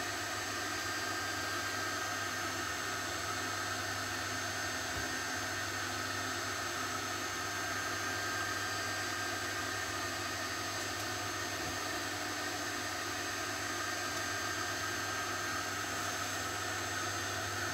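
A 3D printer running: a steady whirring noise with a few constant high tones in it.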